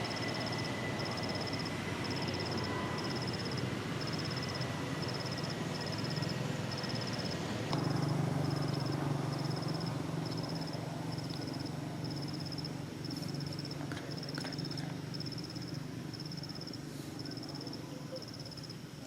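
An insect chirping in a steady series of short, high-pitched pulses, about one every three quarters of a second. Under it runs a low rumble that grows louder about eight seconds in.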